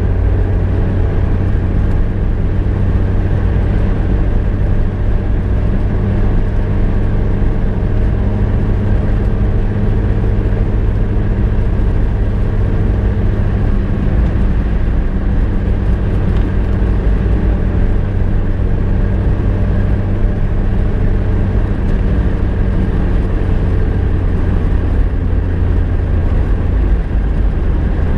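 A car driving at a steady speed: the engine runs with an even, unchanging low drone over road noise, with no revving or gear changes.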